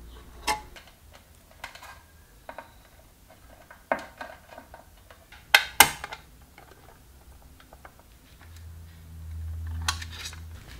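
Scattered sharp metal clinks and clicks of a spanner on nuts and a transformer's steel mounting hardware on an aluminium amplifier chassis, the loudest a pair about five and a half seconds in. A low hum comes in for about two seconds near the end.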